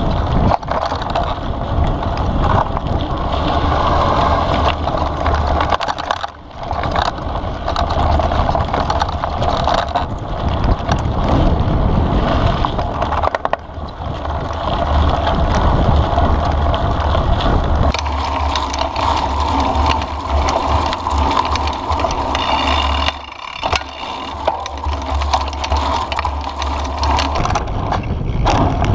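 Mountain bike ridden fast down a dirt forest trail, heard through a bike-mounted action camera: constant wind rumble on the microphone over tyre noise and rattle from the bike, with a few brief lulls.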